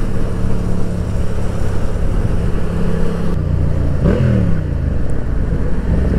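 Yamaha MT-07's parallel-twin engine running at a steady cruise over low road and wind noise, heard from the rider's seat. About three and a half seconds in the engine note changes, and a little later an engine note rises and falls briefly.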